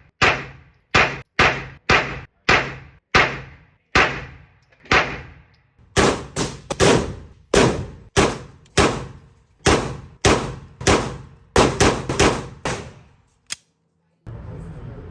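Airsoft replica of a Canik TTI Combat pistol being fired shot by shot, about two dozen sharp reports at an uneven pace of roughly two a second, each with a short ringing tail. The firing stops near the end and a steady background hiss takes over.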